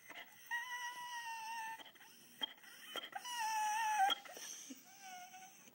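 Airedale terrier howling, or 'singing', to demand its dinner: three drawn-out high calls that each sag slightly in pitch, the second the loudest and the third shorter and softer, with a few sharp clicks between them.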